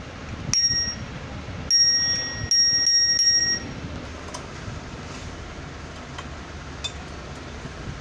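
Children's tricycle handlebar bell with a gold-coloured dome, struck by thumb. It rings once about half a second in, then several times in quick succession over the next two seconds.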